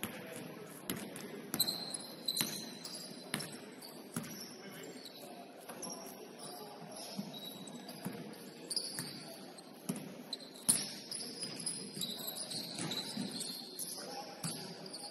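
A basketball bouncing on a gym court, several bounces in the first few seconds and a sharp one near the end, with short high-pitched sneaker squeaks on the floor.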